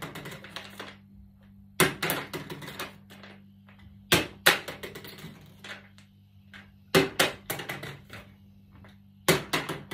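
Plastic bottle partly filled with dry macaroni being flipped onto a wooden table, landing four times about two and a half seconds apart; each landing is a quick clatter of knocks as the bottle hits the table and bounces.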